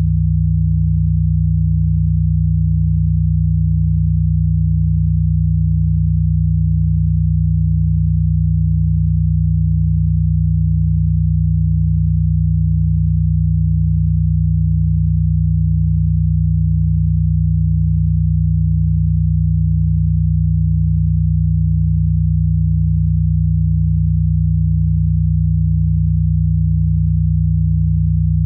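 A synthesized low pure tone of the kind played as a 'healing frequency', held steady and unchanging, with a faint regular flutter in it.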